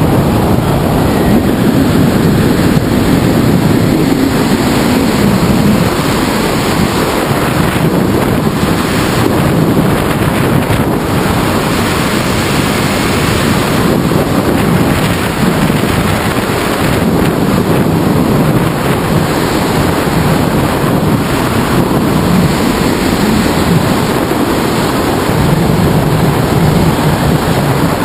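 Loud, steady wind noise from air rushing over the hang glider's wing-mounted camera microphone in flight.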